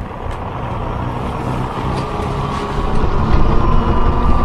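Horror-film sound effect: a deep rumble that grows steadily louder, with a thin steady whine held above it, heard as a threat drawing close.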